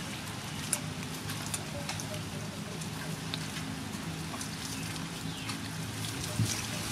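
Water poured from a steel bowl over a banana stalk, splashing and trickling with scattered drips.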